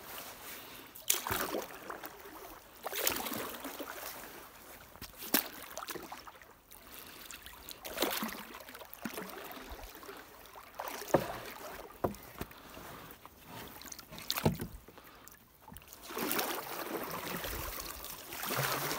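Floating gill net being hauled up by hand along a small boat: irregular swishes and splashes of water, with a few sharp knocks.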